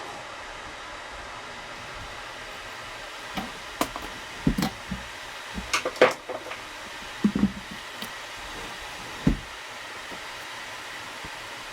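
Steady airy hiss of a running fan or blower in a workshop, with scattered knocks and clicks from tools and wood being handled, most of them between about three and nine seconds in.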